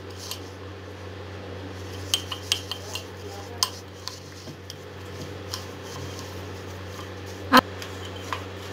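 Metal spoon clinking and scraping against the inside of a mug while mixing sugar, instant coffee and a little water into a thick paste. The clinks come irregularly, the loudest about seven and a half seconds in, over a steady low hum.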